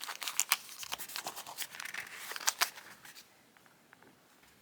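Small metal tools and a plastic case being handled: a run of irregular clicks, taps and scrapes for about three seconds, then quiet.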